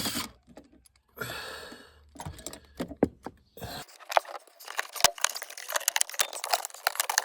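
Handling of plastic interior trim: a short scrape early on, then a dense, rapid run of small clicks and taps, like typing, from panels and clips being worked loose.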